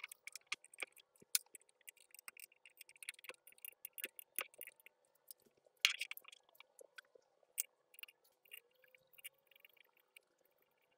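Steel vise parts handled by hand: light clinks, taps and short scrapes of metal on the steel base plate, with a louder clack about six seconds in, over a faint steady hum.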